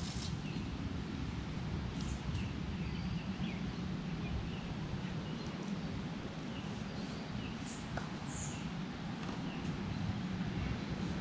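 Small birds chirping in short scattered calls over a steady low rumble of wind on the microphone.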